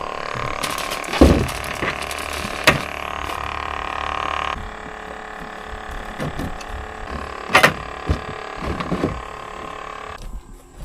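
A steady motor hum that drops in level about four and a half seconds in and cuts off near the end, with a few sharp knocks over it.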